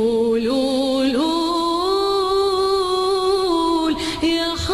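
A woman singing live in Arabic, drawing out long held notes that step and glide between pitches, with a short break for breath about four seconds in.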